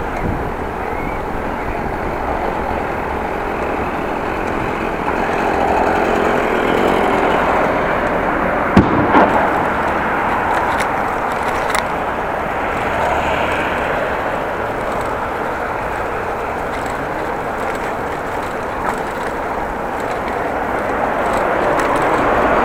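Steady wind and road rumble of a bicycle being ridden, with a few sharp knocks or clicks about nine and twelve seconds in.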